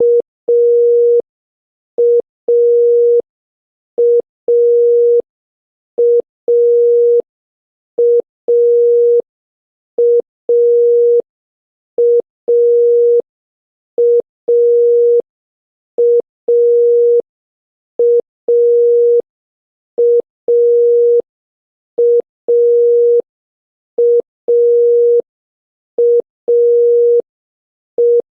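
Historical West German telephone dial tone B: one steady tone in a repeating short-long pattern, a short pip then a longer beep, once every two seconds, the rhythm of Morse 'A'. It signals that the exchange is ready for the caller to start dialling.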